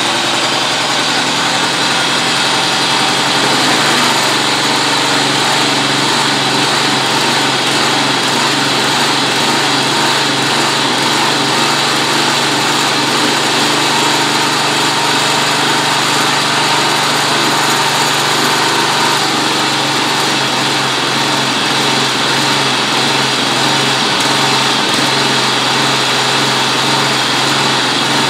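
John Deere JX75 walk-behind mower's engine running steadily just after a choked cold start; its note shifts slightly about four seconds in.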